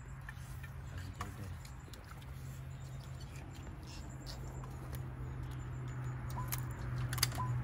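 Light clicks and taps of people eating and handling dishes, over a steady low rumble, with a couple of short squeaky chirps near the end.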